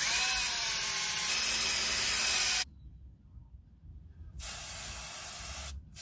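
Aerosol brake cleaner hissing out of the can through its straw in bursts: one long spray of about two and a half seconds, then after a pause of nearly two seconds a shorter spray, and another starting near the end. The bursts are cleaning out the rear hub bore before the new hub is fitted.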